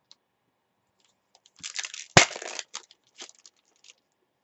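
A foil trading-card pack wrapper being torn open and crinkled, with one sharp snap of the wrapper about two seconds in and a few smaller crackles after.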